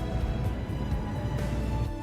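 Instrumental background music with steady sustained tones and a heavy bass.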